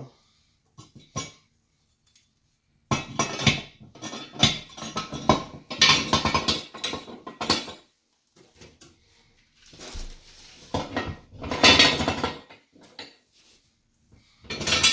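Steel jack stands clanking and rattling as they are handled, in two long bursts of metal-on-metal knocks with a shorter clatter near the end.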